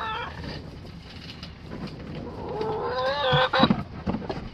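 Hen calling: one drawn-out, wavering call that rises slightly in pitch about two and a half seconds in. A few sharp knocks from the plastic nest-box crates being handled come near the end.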